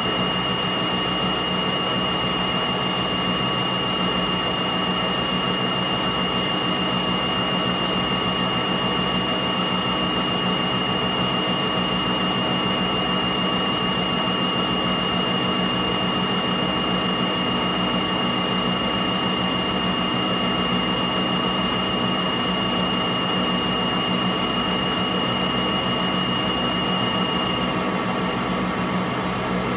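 Metal lathe running steadily, a boring bar set in the bore of the spinning bullet mold. A steady high whine runs with it and stops about two seconds before the end.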